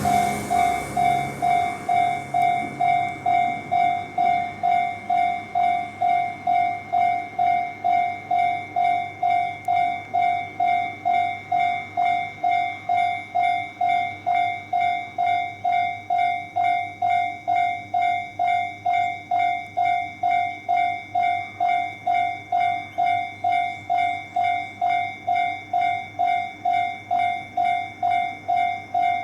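Japanese railway level-crossing warning bell ringing steadily, about two dings a second: the alarm that warns of an approaching train.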